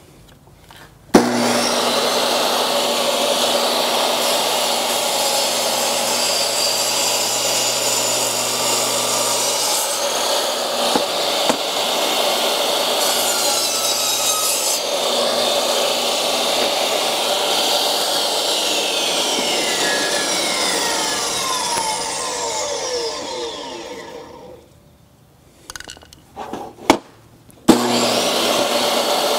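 Table saw switched on about a second in, running and cutting into the case of a lithium iron phosphate battery cell being pushed through the blade. Around twenty seconds in it is switched off and winds down with a falling whine. A few knocks follow as the cell is handled, then the saw starts again near the end.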